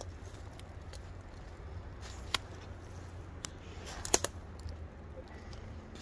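A few short, sharp snaps over a steady low rumble, the loudest a quick cluster of three about four seconds in.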